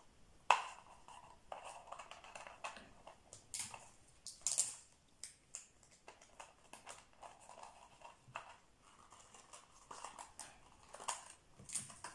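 Light crackles, taps and rustles of a cut-off plastic bottle bottom, ribbon and adhesive tape being handled on a table, with a sharp tap about half a second in.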